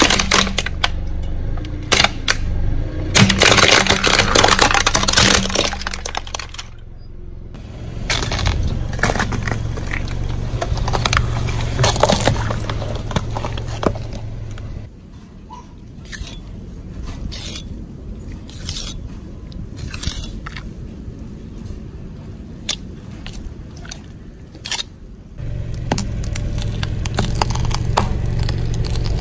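A car engine running as its tyre rolls over and crushes objects, giving a long series of crunches, cracks and snaps. The engine is quieter through the middle stretch while scattered cracks go on.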